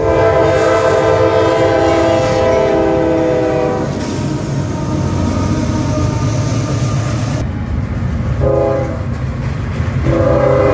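Diesel freight locomotives sounding a multi-note air horn chord, a long blast for about the first four seconds, a short blast about eight and a half seconds in, and the horn again near the end. In between comes the low running of the diesel engines and the rolling of the train past.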